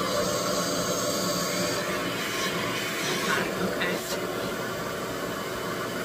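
Rev-air vacuum blow dryer running: a steady rush of air from its base unit's fan motor. A short word and a couple of brief handling sounds come near the middle.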